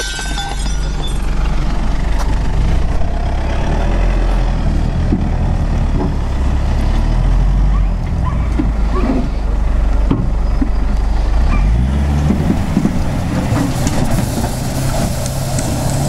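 Pickup truck's engine running hard under load as it climbs a steep dirt slope, a steady low rumble, with the tyres churning loose dirt near the end.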